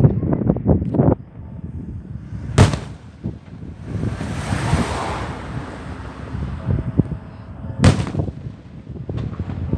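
Fireworks going off: rapid crackling at the start, a sharp bang about two and a half seconds in, a hiss that swells and fades in the middle, another sharp bang near eight seconds, then a few small pops.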